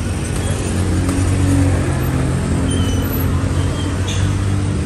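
Street traffic with a motor vehicle engine running close by: a steady low engine hum over general road noise.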